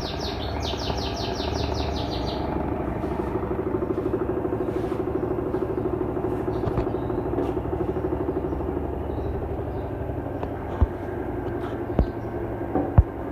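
Mueller Energy 8 kg automatic washing machine running its intermediate spin, a steady hum with a fast flutter. A bird chirps rapidly over the first two seconds, and a few sharp knocks come near the end.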